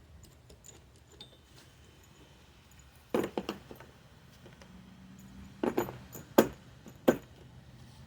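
Metal clinking and knocking from tools and parts being handled: a quick cluster of sharp clinks about three seconds in, then a few more single knocks, the loudest about six and a half seconds in.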